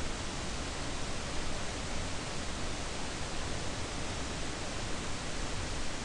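Steady, even hiss of background noise, with no other sound.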